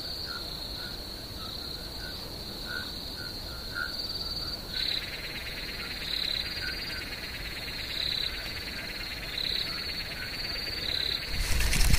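Insects and frogs calling: a steady high insect trill with short chirps repeated a few times a second, joined about five seconds in by a second, buzzing insect layer with short chirps every second or so.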